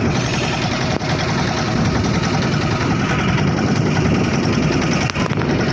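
Engine of a small fishing motorboat running steadily with a fast, even pulsing, mixed with rushing noise.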